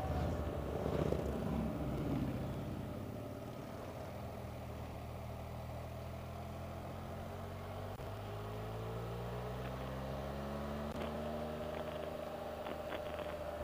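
Can-Am Spyder RT engine running under way, heard from the rider's seat, picking up revs as it accelerates in the second half. A brief rush of louder noise comes in the first couple of seconds.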